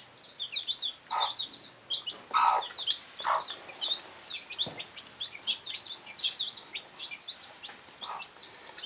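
A brood of newly hatched chicks peeping continuously in short, high calls, while a mother hen clucks a few times among them.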